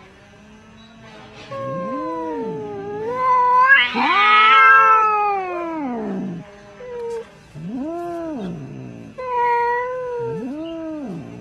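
Domestic cats caterwauling at each other in a standoff: a series of long, wavering yowls that rise and fall in pitch, the loudest about four seconds in.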